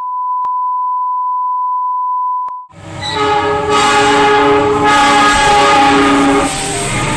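A steady colour-bar test tone, a single high beep, lasts about two and a half seconds and cuts off. Then a diesel locomotive passes with a low rumble, sounding a loud horn of several held tones that change pitch every second or so.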